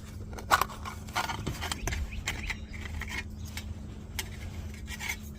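Irregular light clicks, taps and rattles of a small old metal case of vintage safety goggles being handled, over a steady low hum.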